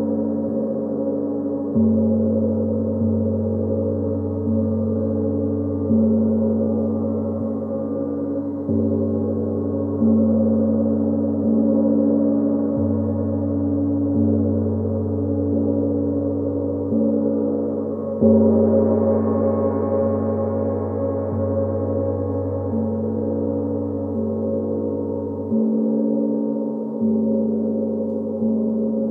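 Gong played with soft, repeated strikes about every second and a half, its deep humming wash sounding on without a break. A harder strike about two-thirds of the way through brings out brighter overtones.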